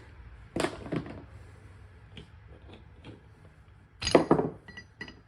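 Metal rear-differential parts being handled and set down, clinking and knocking together: a couple of knocks about half a second in, then a louder cluster of clinks with a short metallic ring about four seconds in.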